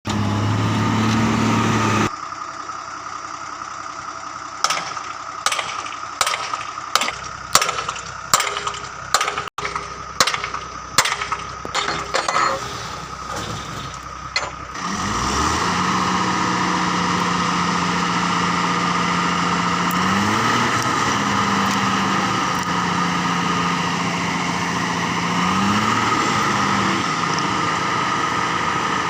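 Heavy diesel engine of earthmoving machinery running steadily, with a run of sharp repeated knocks, about two a second, through the first half. Later its pitch rises briefly twice.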